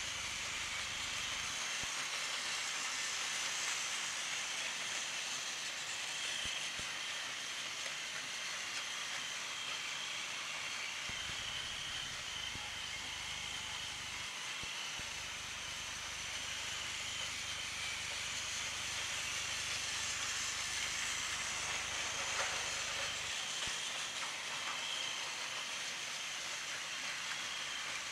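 Steady whirring of battery-powered Plarail toy trains, their small motors and plastic wheels running on the plastic track.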